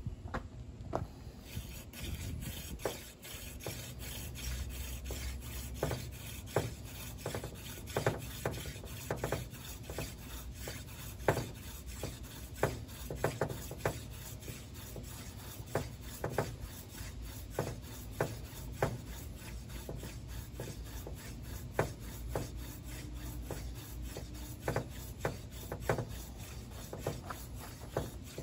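Hand-drill friction fire-making: a horseweed spindle spun back and forth between the palms, its tip grinding in the divot of a water oak fireboard to work up an ember. A continuous scratchy rubbing, fuller from about a second and a half in, with frequent short sharp clicks.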